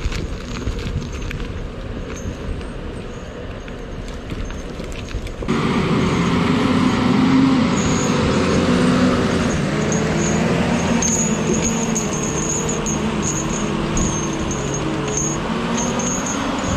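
Tigercat 610E grapple skidder's diesel engine running as the machine drives past close by. The sound jumps up sharply about five seconds in and stays loud, with a wavering engine note and a high squeal that comes and goes.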